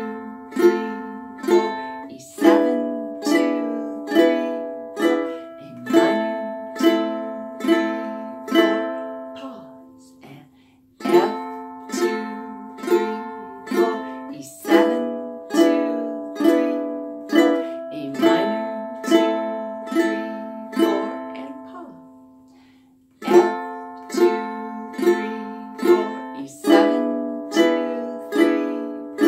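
Ukulele down strums, one chord stroke a little under every second, cycling through F, E7 and A minor with four strums on each. The strumming breaks off briefly twice, about ten and twenty-two seconds in, for the two-beat rest before the pattern repeats.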